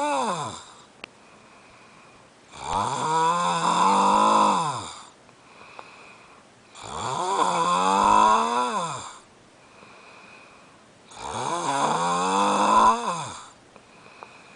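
A man snoring loud in his sleep: the tail of one snore in the first second, then three long snores about every four seconds, each rising and then falling in pitch, with quiet pauses between.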